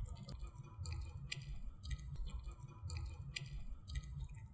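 Munchkin cat chewing wet cat food from a metal dish: faint, irregular wet clicks of eating.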